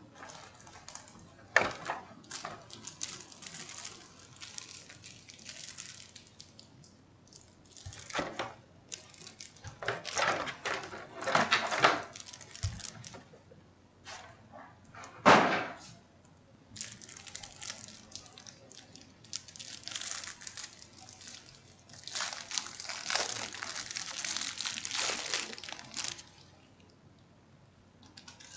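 Clear plastic packaging crinkling and rustling in irregular bursts as hands unwrap a handheld ham radio from its bag, with a couple of sharp knocks as things are handled and set down.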